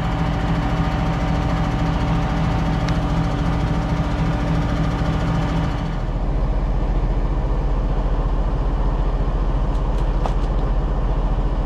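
Deutz-Fahr 8280 tractor's six-cylinder diesel engine running steadily. About halfway through, the sound changes to a deeper, duller hum.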